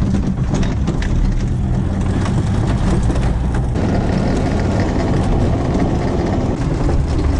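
Off-road vehicle driving over a rutted dirt track: steady engine and road rumble with scattered knocks and rattles from the body and suspension.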